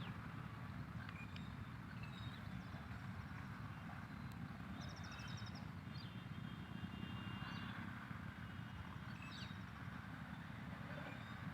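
Songbirds chirping and trilling now and then over a steady low background rumble.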